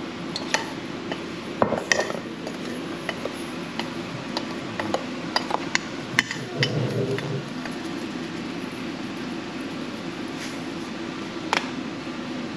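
Metal spoon clinking and scraping against a stainless steel mixing bowl as scallops are stirred in batter and seasoning: irregular sharp clinks, over a steady low hum.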